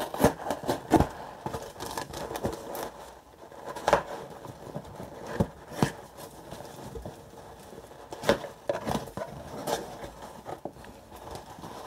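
Hands opening a cardboard parcel and rummaging in its packing fill: irregular rustling and crackling broken by sharp taps and clicks.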